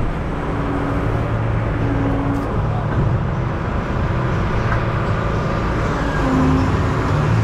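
Tractor engines running steadily at low revs, a continuous low engine drone with a steady hum.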